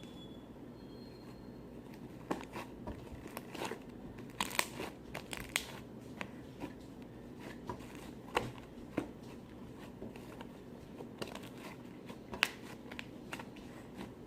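Fluffy slime being squished and worked by hand, making scattered, irregular crackles and pops that start about two seconds in.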